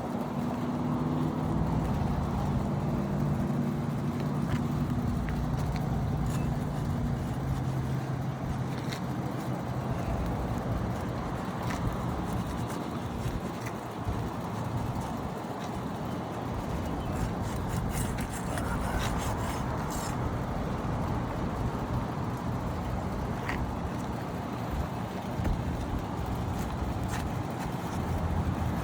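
Steady road traffic noise, with a vehicle engine's low hum fading away over the first several seconds. A few faint clicks or taps come through here and there.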